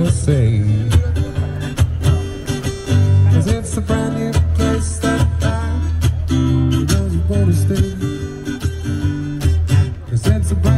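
Acoustic guitar strummed in a steady rhythm, an instrumental passage of a song played by a street troubadour through a small amplifier.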